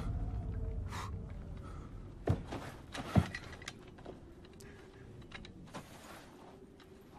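Film sound effects: a low rumble dies away, and two sharp impacts land about a second apart a little after two seconds in, with a few faint knocks after.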